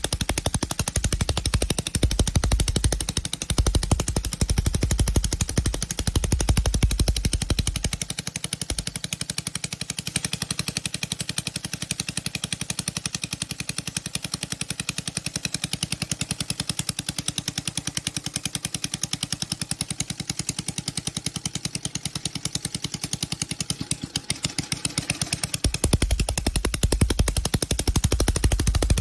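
1939 Iron Horse washing machine engine running, its firing strokes a rapid, steady popping. The deep low thump drops away about eight seconds in and returns near the end.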